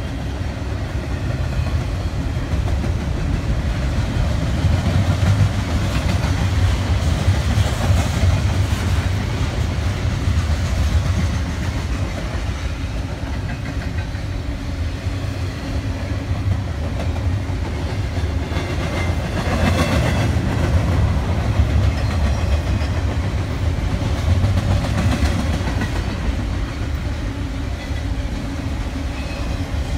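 Double-stack container cars of a BNSF freight train rolling past: a steady low rumble with wheels clattering over the rails, the clatter briefly louder about two-thirds of the way through.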